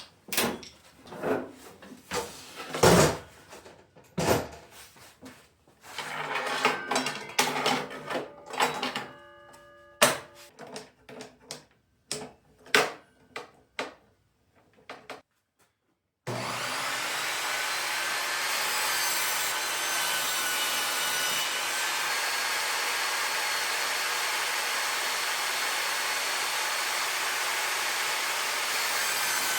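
Irregular knocks and clatter of parts and packaging being handled. About halfway through, after a moment of silence, a steady whirring power-tool noise with a faint whine starts and runs on evenly.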